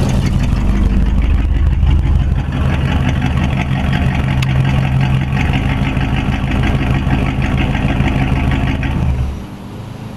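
A car engine running steadily with a low, even rumble, which cuts off about nine seconds in.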